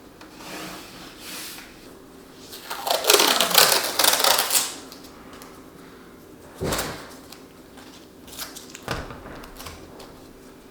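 Hands-on handling noise: two soft swishes, then a loud rustle lasting about two seconds, followed by a sharp knock, a few light clicks and a second knock as objects are set down.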